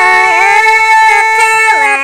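Red Dao women's duet folk singing: a woman's voice holds one long high note, then slides down near the end.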